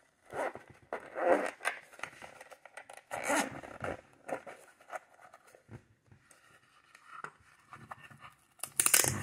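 Zipper on a small zip-around watch travel case being pulled open in several short rasping runs, the loudest near the end.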